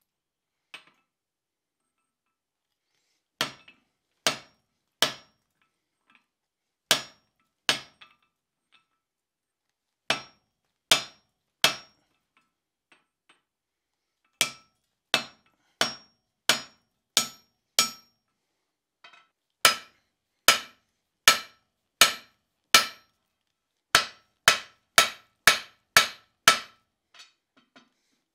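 Hand hammer striking a hot iron bar on the anvil and over a hardy tool, with sharp ringing blows. The blows come in short groups of two to six with pauses between, quicker near the end.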